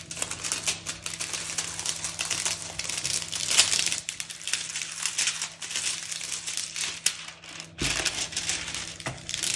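Clear plastic protective film on a diamond painting canvas crinkling continuously as it is handled.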